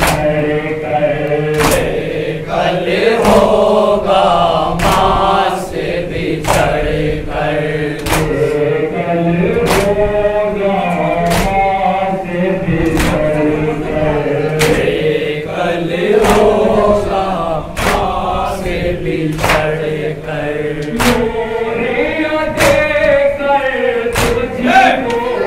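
A group of men chanting a noha together in a slow, wavering melody, with matam: hands striking chests in unison in a steady beat, one sharp slap about every 0.8 seconds.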